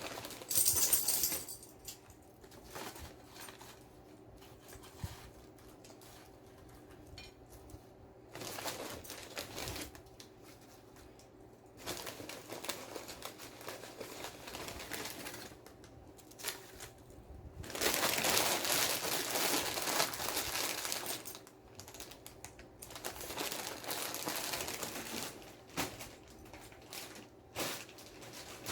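Items being handled and set down on a table: several stretches of rustling and crinkling, like wrappers or packaging being moved, with scattered light clicks and taps between them.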